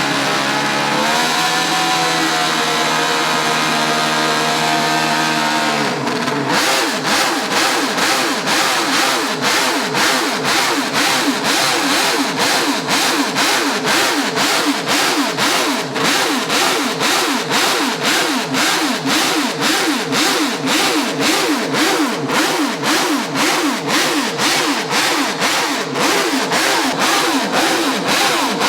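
Honda RC166 250 cc inline-six four-stroke racing engine running at high revs. It holds a steady high note for about six seconds, then is blipped up and down on the throttle about twice a second.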